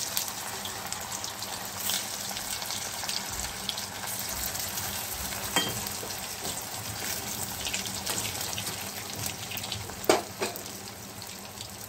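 Sabudana-and-potato vadas deep-frying in oil in a kadhai over a medium flame, with a steady crackling sizzle. A slotted metal spoon clinks against the pan about halfway through, and again more loudly near the end.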